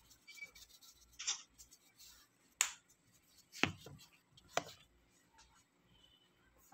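A seasoning bottle and other kitchen items handled on a countertop: a few separate sharp clicks and taps about a second apart, with one duller knock about three and a half seconds in.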